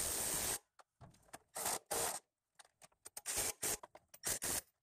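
Cordless drill with a socket extension driving engine bolts, its motor running in about five short bursts: one of about half a second at the start, then shorter runs.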